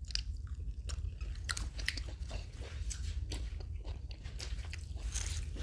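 A person chewing a mouthful of stuffed paratha close to the microphone, with irregular wet mouth clicks over a low steady rumble.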